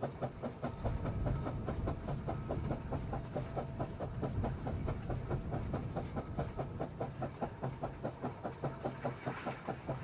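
Steam cable ploughing at work: a balance plough drawn across the field on a steam ploughing engine's wire rope. A steady, even clicking of about four or five a second runs over a low rumble.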